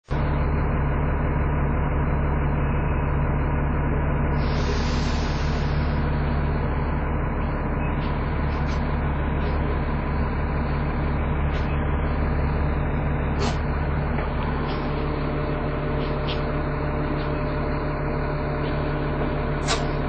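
Diesel engine of a Dennis Trident 2 double-decker bus idling steadily, heard from inside the bus. There is a brief hiss about four and a half seconds in, and a few sharp clicks in the second half.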